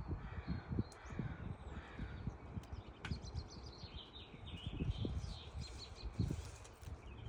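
Songbirds chirping and twittering in short repeated calls, over irregular low thumps and rumble.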